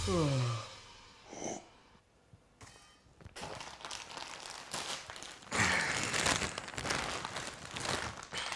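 Plastic food packet crinkling and rustling as it is handled and pulled open, louder from about halfway through. It opens with the last falling notes of a short musical sting.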